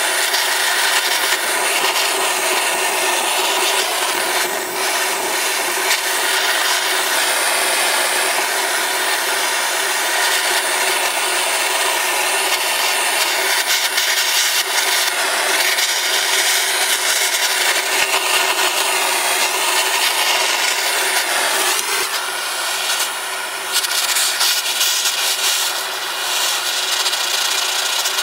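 Gas torch flame hissing steadily as it heats a beeswax-coated steel railroad spike, burning the wax in as a black finish.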